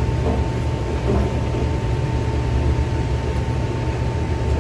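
Steady low rumble of running industrial machinery with a constant thin whine above it, and a couple of faint knocks in the first second or so.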